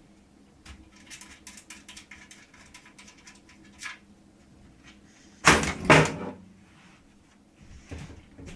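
Side panel of a Thermaltake Versa H15 PC case being taken off: small clicks and handling noise, then two loud clunks about half a second apart, and a softer knock near the end.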